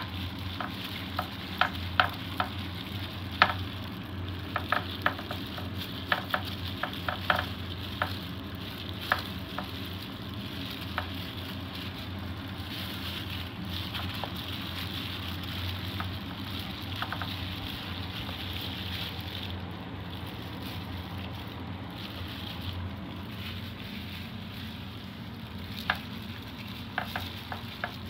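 Gloved hands rubbing kimchi chili paste into cabbage in a metal pot: a steady wet squelching and crinkling of plastic gloves, with many sharp clicks through the first half and again near the end, over a low steady hum.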